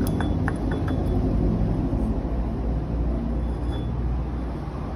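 Steady low rumble of a vehicle engine running, with a few light clicks in the first second.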